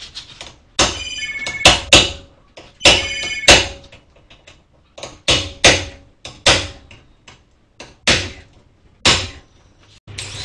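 A cordless power tool runs in two short bursts on the minivan's front brake hardware, with sharp metallic impacts at the end of each burst. Then come about nine separate sharp metal knocks, irregularly spaced.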